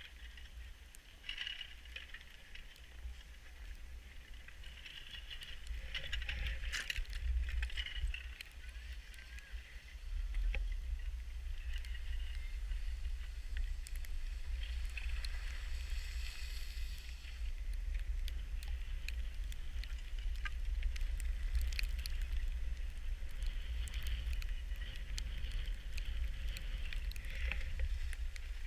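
Skis sliding over snow with wind rumbling on the action camera's microphone, louder from about ten seconds in.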